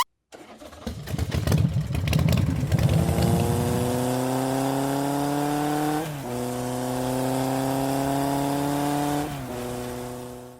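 Motor vehicle engine starting with a clatter, then running up in pitch as it accelerates. The pitch steps back about six seconds in and again near nine seconds, like gear changes.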